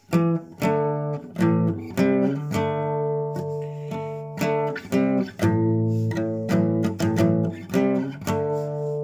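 Classical guitar with a homemade compensated bridge saddle, strummed in a rock riff: short, choppy chord hits mixed with chords left to ring for about a second.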